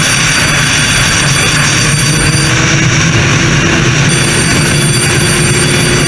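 Loud, steady running noise of a moving vehicle.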